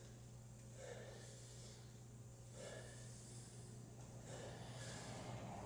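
Faint, regular breathing of a man under exertion during barbell overhead squats, a breath out about every second and three quarters, over a steady low hum.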